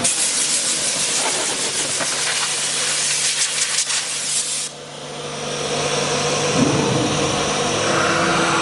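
Loud steady hiss that cuts off suddenly about four and a half seconds in, followed by a quieter machine running.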